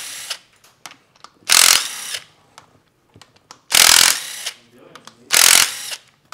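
A power ratchet or impact tool spinning bolts on the engine in three short bursts about two seconds apart, each under a second long.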